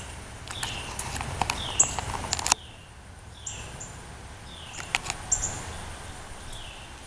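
A songbird calling over and over, short falling whistled notes alternating with thin high notes about once a second. A few sharp clicks come in the first half and again around five seconds in, and a low rumble stops abruptly about two and a half seconds in.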